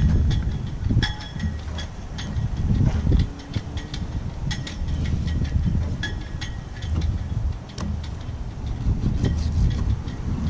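Wind buffeting the microphone, with scattered light clicks and scrapes of a fillet knife on the cleaning table as flounder fillets are skinned and trimmed.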